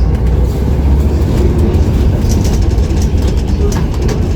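Steady low rumble of a bus's engine and city street traffic, heard from aboard a sightseeing bus.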